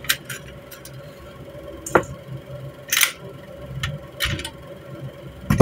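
Metal parts of an AK-pattern rifle being taken apart by hand: the receiver cover and recoil spring assembly coming off with scattered clicks and clacks, the loudest about two and three seconds in.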